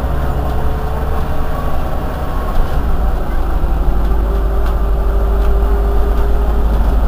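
Irisbus Citelis 18 articulated city bus idling at a standstill: a steady low engine rumble, with a faint steady whine that grows clearer about three seconds in.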